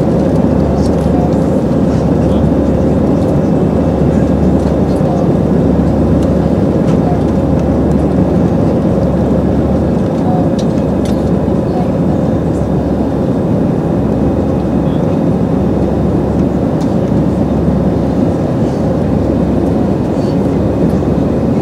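Steady cabin noise inside an Airbus A320 climbing out after takeoff: the engines at climb power and air rushing past the fuselage, with a steady hum running through it.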